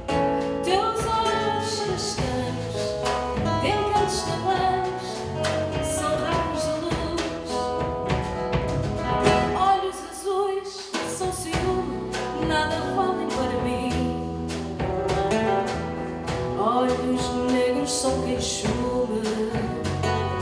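A small band playing live: classical guitar, electric bass and drum kit, with a woman's voice singing over them.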